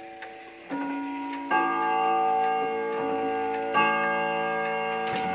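German Black Forest 8-day spring-driven wall clock striking the hour on its bim-bam chime at twelve o'clock. Two alternating notes sound, a lower strike about a second in, then a higher one, then another strike about two seconds later. Each strike rings on with several overlapping tones over the pendulum's ticking.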